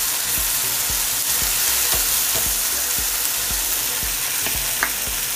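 Chopped onions, curry leaves and freshly added tomatoes sizzling in hot oil in a frying pan, with a steady hiss. A metal spoon stirs them, tapping and scraping the pan at a regular pace.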